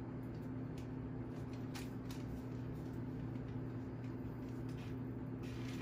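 Faint, scattered rustles and light taps from hands handling a rattan proofing basket and cotton tea towel as the basket is eased off a proofed sourdough loaf, over a steady low hum.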